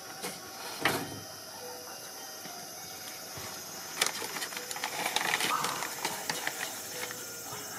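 Paper crinkling and rustling as it is handled, with a sharp crackle about a second in and another about four seconds in, then denser crackling.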